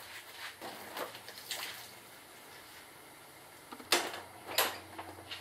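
Faint water hiss and dripping at first, then a lull. About four seconds in come two loud, sharp knocks as a wet scooter is handled and rocked on its stand.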